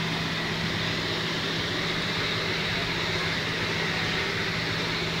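A steady machine hum: a constant low drone over an even hiss, unchanging throughout.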